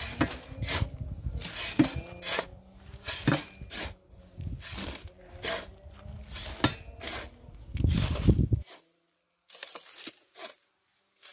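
Sand and fine gravel being shovelled into a plastic wheelbarrow: a quick run of gritty scrapes and pours as the shovel bites into the pile and tips each load into the barrow. It stops suddenly about eight and a half seconds in, leaving a few faint ticks of grit.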